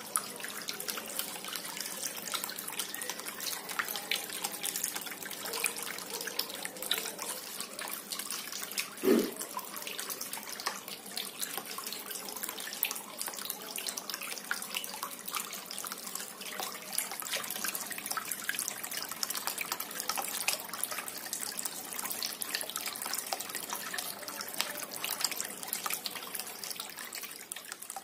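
Water from a small aquarium-pump cement tabletop fountain trickling and splashing steadily down its cement steps into a pebble-filled basin, with fine dripping. A brief low thump about nine seconds in.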